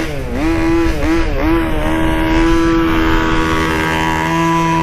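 Small two-stroke gasoline engine of a 1/5-scale RC buggy: the throttle is blipped a few times in the first two seconds, the pitch dipping and rising, then held with the engine running high and steady.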